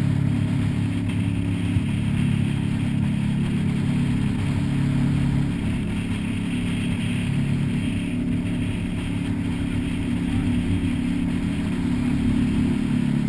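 Wooldridge jet boat's engine running steadily at cruising speed, with a hiss of water and wind over it.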